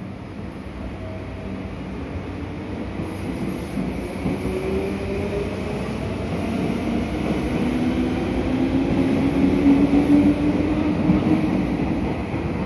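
Meitetsu 6500 series electric train pulling away and gathering speed. Its traction motors whine in a slowly rising pitch over the rumble of wheels on rail, which grows louder as the cars go by and is at its loudest near the end.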